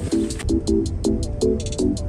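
Background music: an electronic pop track with a fast, even tick, short repeated chords and a bass beat, no vocals.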